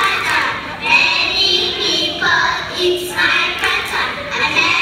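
Young children singing.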